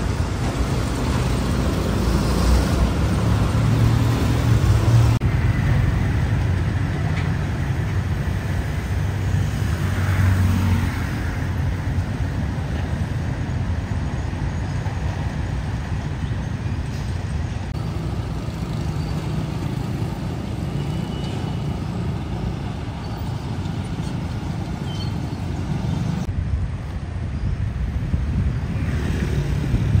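Road traffic noise: a steady low rumble of vehicle engines and tyres, with no voices. The background changes abruptly three times, about 5, 18 and 26 seconds in.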